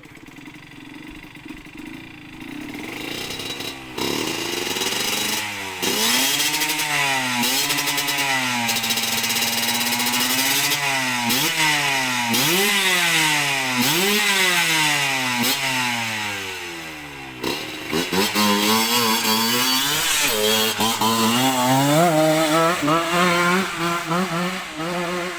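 Kawasaki Ninja 150 two-stroke single-cylinder engine in a Honda Win motorcycle, revving up and down over and over. It is faint at first and loud from about four seconds in, with a brief dip a little past the middle.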